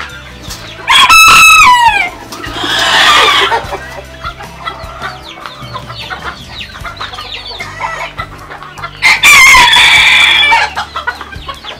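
Roosters crowing three times: about a second in, again around three seconds, and near nine seconds. Between the crows there are many short, high calls and clucking from other chickens.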